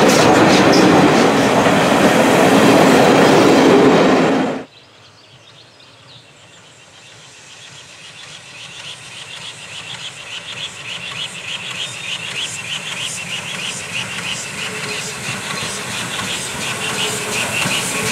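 Passenger coaches of a steam train rolling close past with loud wheel and rail noise, cut off abruptly about four and a half seconds in. Then an ex-GWR Large Prairie 2-6-2 tank steam locomotive, No. 5199, approaches with its train, its sound growing steadily louder with a quick, even rhythm.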